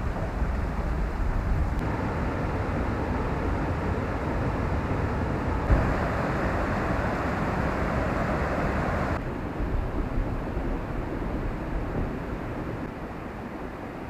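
Rushing water of a mountain stream and small waterfalls, a steady hiss. It jumps in level abruptly a few times and is loudest in the middle.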